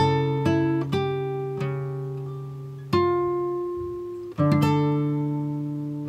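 Background music: a slow plucked-string instrumental, with notes and chords struck now and then and left to ring and fade.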